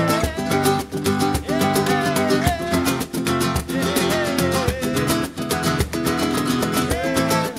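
Background music with guitar, a melody line and a steady beat.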